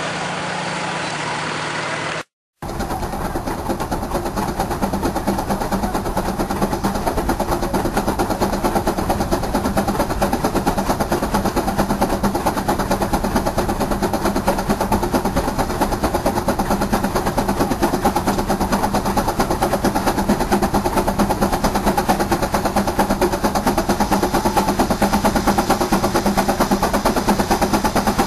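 An engine running steadily breaks off sharply about two seconds in. After a short silence, a machine starts up running with a fast, even beat over a steady hum.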